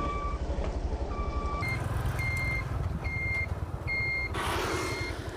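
Motorbike engine running under a repeating electronic beeper, about one beep a second. About one and a half seconds in, the beep turns higher and shorter. A short rush of noise comes near the end.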